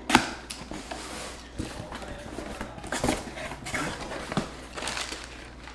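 Packaging being handled and opened: rustling and crinkling with scattered knocks and taps. The loudest is a sharp knock just after the start.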